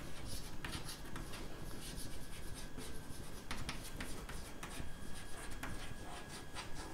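Chalk writing on a blackboard: quiet scratching strokes with a few sharper taps as the letters are formed.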